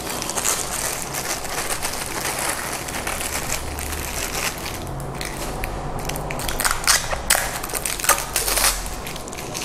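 Clear plastic bag crinkling and rustling as it is handled and opened, with sharper crackles in the last few seconds.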